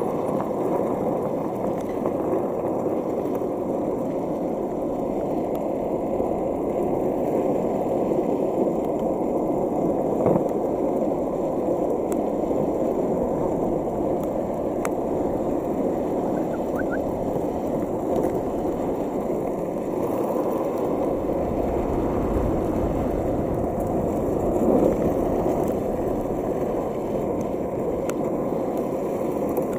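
Wheels of a Landyachtz cruiser longboard rolling steadily over rough asphalt, a continuous rumble, while a husky tows the rider. A deeper low rumble joins about two-thirds of the way through.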